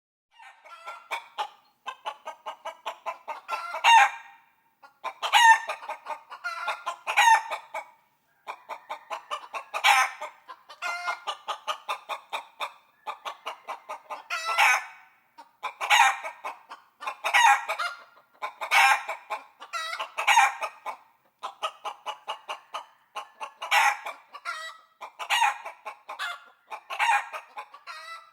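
Rooster clucking in quick runs of short, evenly spaced calls, many runs ending in a louder call. The runs come over and over with brief pauses between them.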